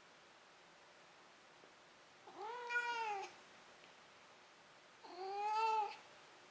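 A Scottish Straight cat meowing twice. Each meow is drawn out for about a second, rising and then falling slightly in pitch, and the two come about three seconds apart.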